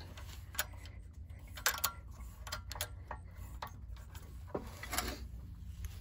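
Scattered light metallic clicks and taps from a Predator 212's valve train as a rocker arm is pushed back over against its valve spring and the push rod is seated under it.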